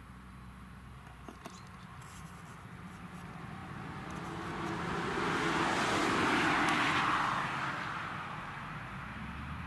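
Fendt 936 Vario tractor running steadily while pulling a slurry tanker with a 30-metre trailing-hose spreading boom. A rushing noise swells to its loudest about six seconds in, then fades.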